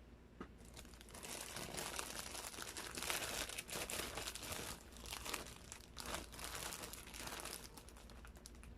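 Plastic packaging crinkling as it is handled close to the microphone, a dense run of crackles and small clicks that starts about a second in, swells in the middle and thins out near the end.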